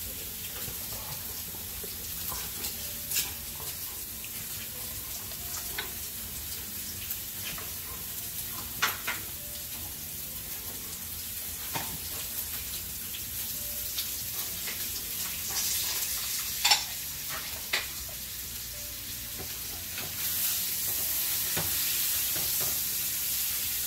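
Steak sizzling in butter in a frying pan: a steady hiss with scattered sharp clicks, which gets louder about twenty seconds in.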